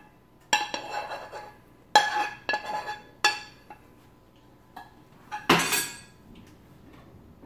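A metal spoon clinking and scraping against a small frying pan in a string of sharp, ringing knocks while sauce is drizzled from it, then a louder clatter about five and a half seconds in as the pan is set back down on the stove.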